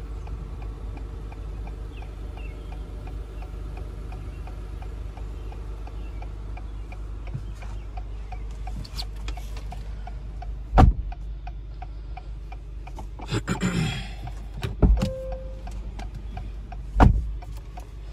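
The Acura TLX Type S's hazard-light flasher ticking steadily and evenly. Three heavy thumps come in the second half, the loudest sounds here, with a brief rustle between them.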